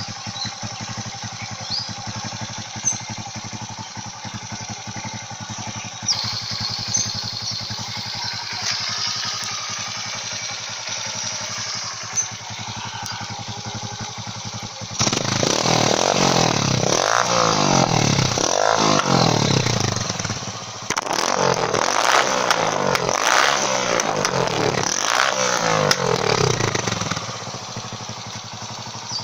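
Italika FT150S single-cylinder motorcycle engine idling through an aftermarket Akrapovic-copy exhaust with its dB-killer baffle removed. About halfway through it is revved repeatedly, about six quick rises and falls in pitch, then settles back to idle near the end.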